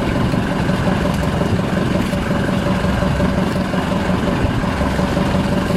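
Outrigger boat's engine running steadily, a continuous low hum.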